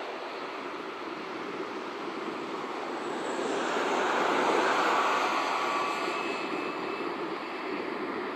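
Jet engines of a Boeing 737 airliner on final approach: a steady rushing noise that swells about four to five seconds in as the plane comes closest, with a faint high whine over it.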